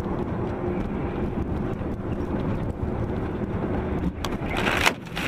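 Steady engine and road drone heard inside a vehicle's cab. About four seconds in, a loud rush of noise swells and then cuts off sharply just before the end.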